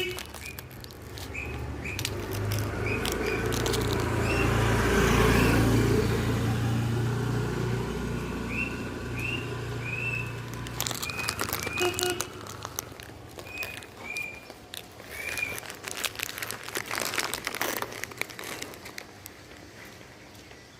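A vehicle's engine passes with a low hum, loudest about five seconds in and gone by about eleven seconds, while small birds chirp in short repeated calls. In the second half come bursts of sharp crunching clicks from a dog chewing biscuits.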